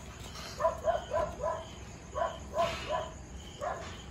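Short animal calls, given in quick runs of two to four, over a faint, evenly repeated high chirping of crickets. A brief rasping noise comes about two and a half seconds in.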